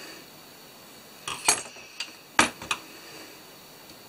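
Light clinks and knocks of a small driver and hardware while a back plate is screwed onto a drone frame: a short cluster about a second and a half in, then two sharp clicks near two and a half seconds.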